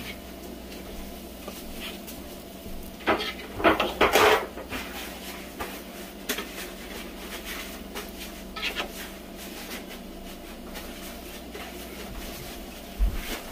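Dishes and utensils clattering a few times as kitchenware is handled, in a cluster about three to four seconds in, once near the middle and again near the end, over a low steady hum.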